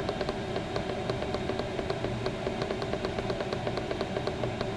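Chinese diesel air heater running, being turned down from high to low speed: a steady hum from its blower, with a fast, even ticking of about four to five clicks a second that fits the fuel dosing pump pulsing at about 5 Hz.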